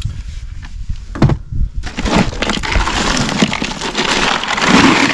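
Rubber T-latches of an RTIC hard-sided cooler snapping loose with a few sharp clicks. Then a hand rummages through loose ice cubes in the cooler, a continuous loud crunching and clattering that grows toward the end.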